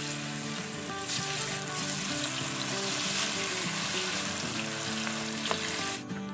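Pieces of marinated beef sizzling as they are dropped into hot oil in a karahi and deep-fry, a steady dense crackle, with background music underneath. Near the end the sizzle cuts off abruptly.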